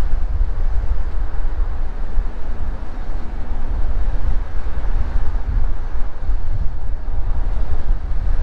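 Wind buffeting the microphone of a camera on a moving vehicle, a loud, fluctuating low rumble over road noise.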